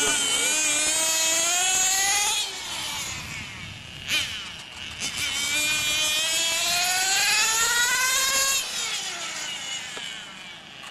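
Radio-controlled model motorcycle's motor accelerating, a high whine rising in pitch for about two seconds, then dropping. It climbs again in a longer rise before falling away near the end. A sharp click sounds about four seconds in.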